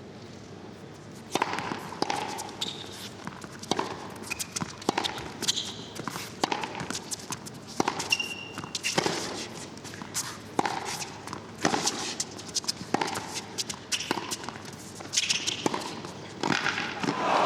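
A tennis rally: rackets strike the ball and the ball bounces on the court in a steady run of sharp pops, roughly one every half second to second. The crowd is hushed at first, and applause begins to swell right at the end as the point is won.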